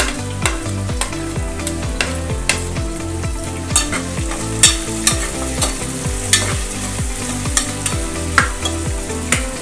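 Sliced onions and green chillies sizzling in hot oil in a pressure cooker, stirred with a metal spoon that scrapes and clicks against the pot at irregular moments.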